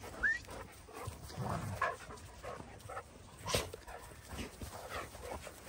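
A pack of Hungarian vizslas play-fighting, giving scattered short whines and rough-play noises as they tussle.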